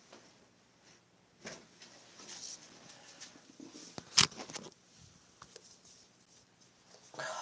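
Rustling and handling noises from a phone being moved about, with scattered small clicks and one sharp knock about four seconds in.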